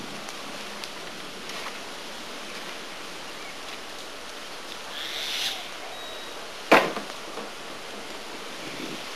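A hard-shell briefcase set down on asphalt with one short, sharp thud, against a steady outdoor hiss.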